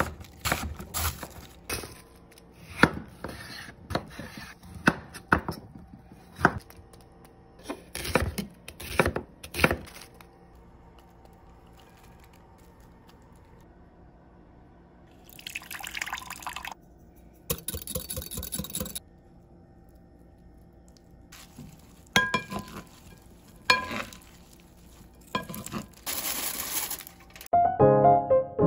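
Kitchen cooking sounds: a knife chopping lettuce on a wooden cutting board in a quick run of sharp strikes, then liquid being poured, a second run of clattering strikes later on, and piano music coming in near the end.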